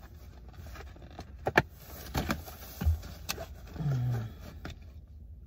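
Objects being handled inside a car cabin: a few sharp clicks, the loudest about a second and a half in, and a dull thump near three seconds.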